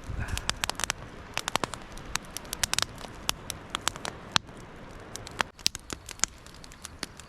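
Small grid-style kindling fire crackling as it catches, with many sharp, irregular snaps over a steady low hiss.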